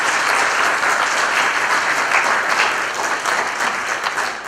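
An audience applauding steadily, easing off slightly near the end.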